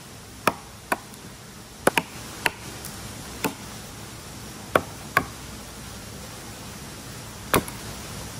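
Wood being cut with a blade: about nine sharp, irregular chopping knocks into a branch, some coming in quick pairs.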